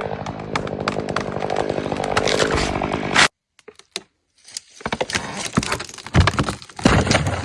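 Chainsaw running and cutting, which stops abruptly a little over three seconds in. After a short gap come a series of sharp cracks and knocks, with two heavy thumps near the end.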